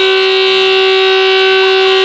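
Fire station siren of a volunteer fire brigade sounding a loud, steady tone with no rise or fall in pitch.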